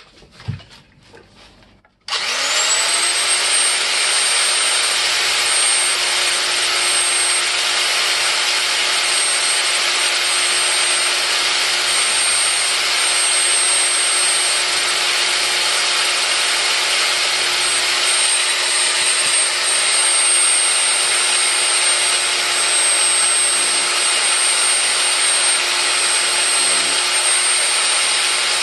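An old chrome-bodied electric drill starts about two seconds in and runs steadily with a high whine, its thin bit drilling the old plaster of Paris out of the level's small metal vial tube. A few brief handling knocks come before it starts.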